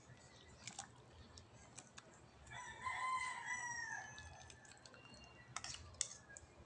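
A rooster crowing once, one long call starting about two and a half seconds in, with a few light clicks of a metal ladle against the cooking pot before and after.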